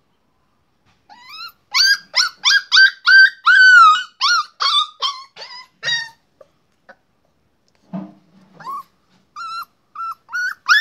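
Puppy giving a fast run of short, high-pitched barks, about three a second, starting about a second in; after a pause of a couple of seconds the barks start again, more sparsely, near the end.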